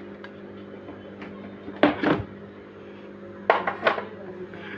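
Four sharp knocks or clunks, a pair about two seconds in and another pair a second and a half later, over a steady low hum.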